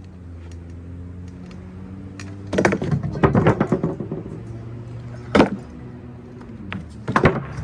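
Stunt scooter clattering on a plywood pallet ramp and pavement: a burst of hits about two and a half seconds in, a single sharp bang about five seconds in, and a couple more near the end. Background music plays under it.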